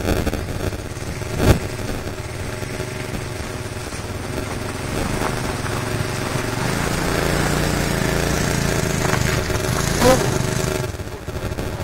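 ATV engine running, getting louder from about six seconds in and easing off near the end. A sharp thump about one and a half seconds in, and another short loud burst at about ten seconds.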